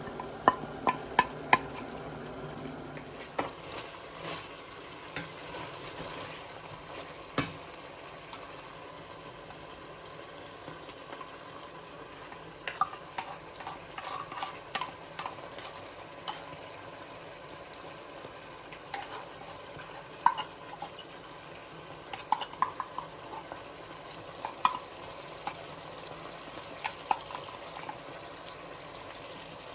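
A metal spoon stirring food in a pot, with repeated sharp clinks against the pot, over a steady sizzle of frying.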